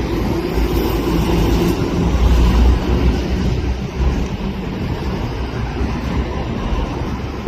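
Jet engines of an Airbus A380: a loud, steady low rumble with a hiss above it. It is strongest about two to three seconds in and eases slightly after.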